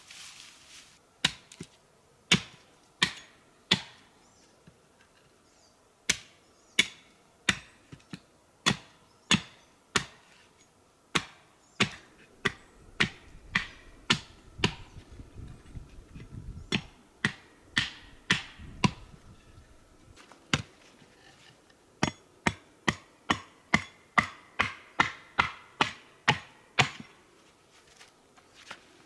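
Hand axe chopping wood on a stump: a run of sharp single strokes, one or two a second, coming quicker near the end, as a stick is shaped into a digging tool.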